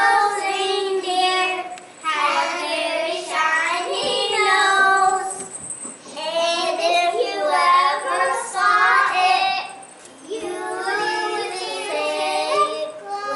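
A group of young children singing a song together, in phrases of about four seconds with short breaks between lines.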